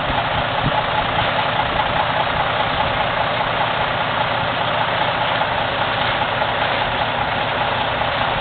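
Large truck's engine idling steadily, an even hum with no change in pitch.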